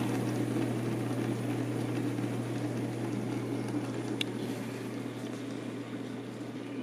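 Small brewing pump running with a steady hum as wort rushes through the transfer line and its in-line sight glass.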